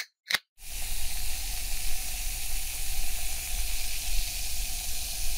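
Two quick clicks, then a steady hiss with a low rumble underneath, a sound effect that leads into a soft-drink advert.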